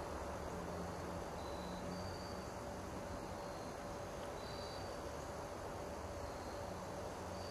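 Quiet forest ambience: a steady faint hiss with a low hum, and short, thin high-pitched peeps every second or two.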